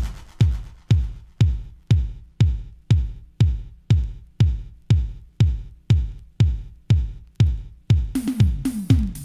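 Drum-machine dance track stripped down to a lone kick drum, each hit sliding down in pitch, about two a second. Near the end hi-hats and more percussion come back in.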